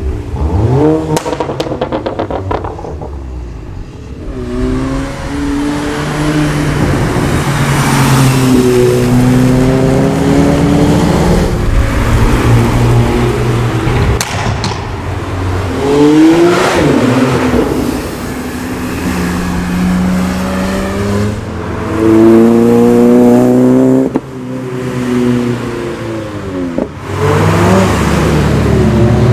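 Several performance cars passing one after another at speed, their engines revving hard, each note rising and falling in pitch as the cars go by and shift gear, with a couple of sharp cracks in between.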